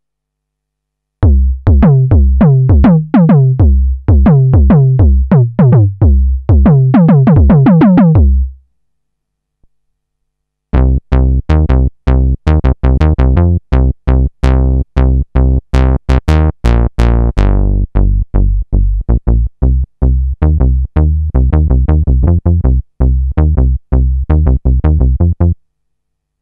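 Novation Peak synthesizer playing factory presets, recorded direct. First comes a run of short notes that each sweep downward. After a short pause, the '3Osc Bass' patch plays a fast repeated bass line while its filter cutoff is turned up and back down, so the tone brightens to a buzzy peak and then darkens again.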